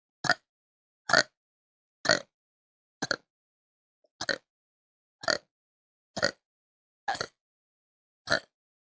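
A woman burping nine short burps in a row, about one a second, each brief and abrupt, as part of a counted run of repeated burps.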